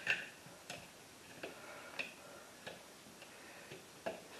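Light plastic-and-metal clicks from a duplex USB outlet being handled as the white neutral wire is pushed straight into its terminal hole: a string of short ticks, roughly one every half to three-quarters of a second, the loudest near the start.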